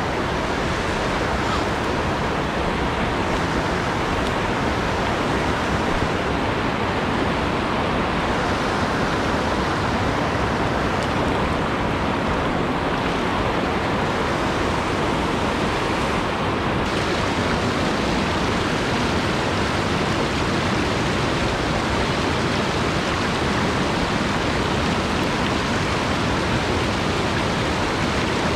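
Rushing water of a rocky mountain stream: whitewater rapids and a small cascade pouring over boulders, a steady, unbroken rush.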